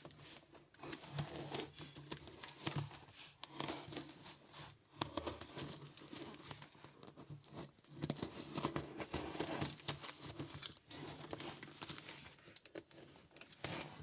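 Packaging being crumpled and torn open by hand, an irregular crinkling and crackling with small knocks and clicks.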